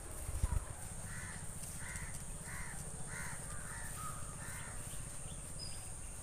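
A bird calling: a run of about eight short calls, roughly two a second, over a steady low rumble.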